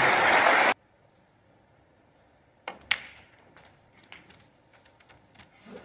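Audience applause that cuts off abruptly under a second in. About three seconds in, a snooker cue tip clicks against the cue ball, which then cracks into a red a quarter second later, followed by a few fainter ball clicks.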